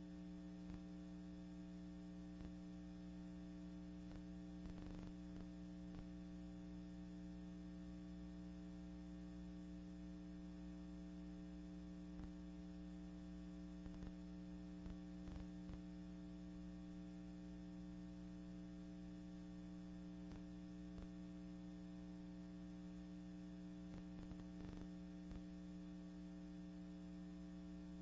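Steady low electrical mains hum with faint hiss and a few faint clicks, the noise floor of a transfer of silent archival film with no recorded sound of its own.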